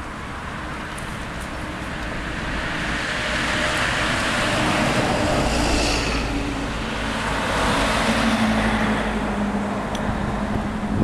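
Road traffic passing on a multi-lane road, with cars and a lorry going by. The noise swells as vehicles pass, loudest about halfway through and again a little before the end.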